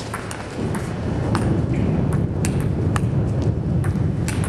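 Table tennis rally: a celluloid ball struck back and forth, sharp pings of ball on bat and table about every half second to a second. Underneath, a low background noise swells about a second in.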